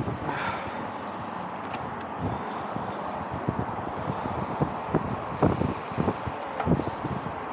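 Wind buffeting the microphone while cycling, over a steady rushing noise. Low gusty thumps come more often from about halfway through.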